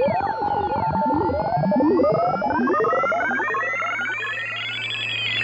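Synthesized sci-fi space-communication effect: many electronic tones warbling and sliding up and down at once over a steady low hum, with a slow rising sweep building through the second half.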